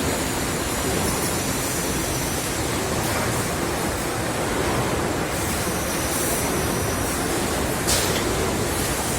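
Steady machinery din of a chest freezer production line, with a short sharp clack or hiss about eight seconds in.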